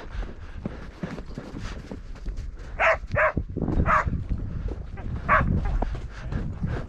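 A dog barks four short, sharp times over about three seconds in the middle, over the steady footfalls of a ridden mule walking in snow.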